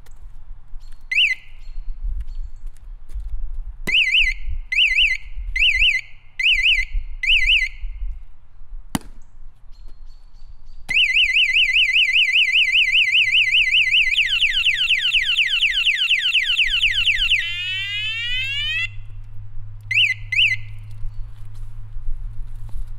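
Bluefire motorcycle security alarm being tested: its speaker gives one warbling chirp, then a run of five chirps, then a click. About halfway through the full siren sounds, first a fast steady warble, then rapid falling sweeps, before it cuts off and two more chirps follow near the end, over a low rumble.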